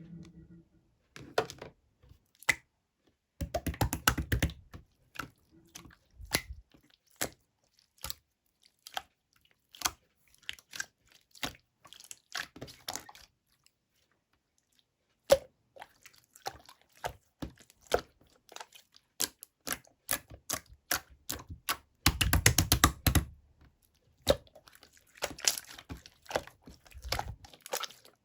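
Pink clear jelly slime being pressed and stretched by hand, giving sticky clicks and small air-bubble pops. Two dense runs of rapid crackling come about four seconds in and again about twenty-two seconds in, with a short pause in the middle.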